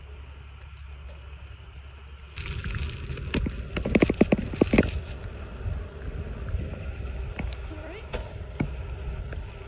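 Riding noise from a Trek DS1 hybrid bicycle: tyres rolling on asphalt and wind over a handheld phone's microphone. A little over two seconds in it suddenly gets louder, with a quick cluster of knocks and rattles between about three and a half and five seconds in.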